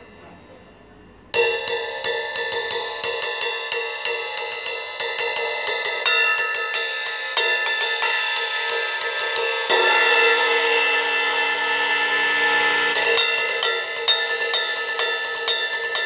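A Meinl MCS cymbal ridden with the tip of a wooden drumstick in a quick, steady stream of strokes, its wash building up under them. The strokes start about a second in after a fading ring, grow fuller around the middle, and carry sharper accents near the end.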